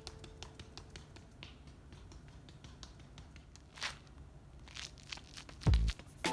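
Quick, faint footfalls of a runner on concrete steps, a rapid patter of light ticks over a low rumble, with a louder, heavier footfall thud near the end.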